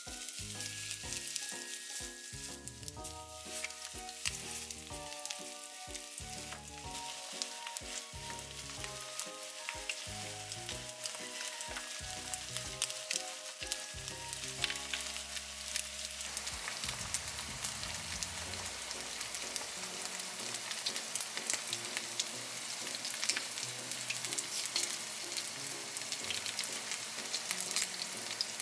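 Flour-coated chicken pieces deep-frying for karaage in hot oil in an iron pan: a steady sizzle with many sharp crackling pops, which come through more plainly in the second half. Light background music plays over the first half, then fades out.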